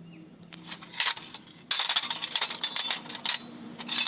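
Small metal objects clinking and jingling together in quick, dense bursts, bright and ringing, starting about half a second in and stopping shortly before the end.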